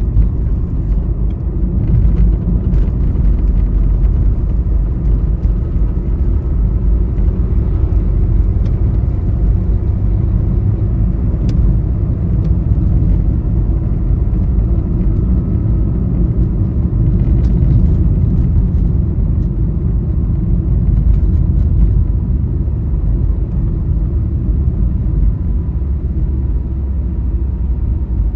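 Steady low road rumble of a vehicle travelling along a highway at speed, with a few faint clicks over it.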